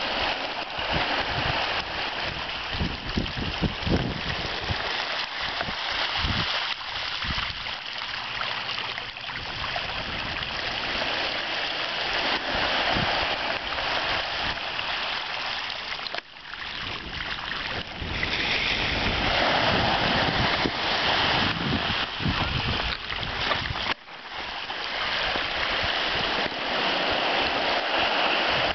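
Small waves washing onto a gravel beach thick with spawning capelin, the fish splashing and flipping in the shallows: a steady rush of water and splashing, with brief drops in level twice in the latter half.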